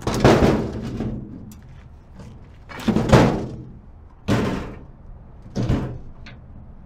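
Sheet-metal generator cover panels clanking as the cover is taken off and handled: four loud thunks, a second or more apart, each with a short rattle after it.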